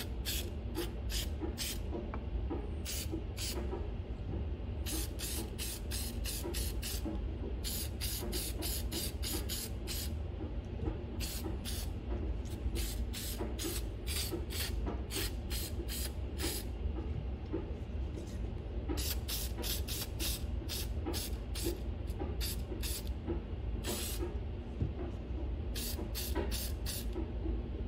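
Aerosol can of cleaning oil sprayed in many short hissing bursts, soaking rusted shotgun action parts.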